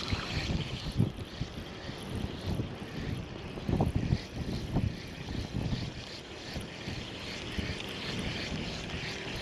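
Wind buffeting the microphone in uneven gusts over a steady hiss.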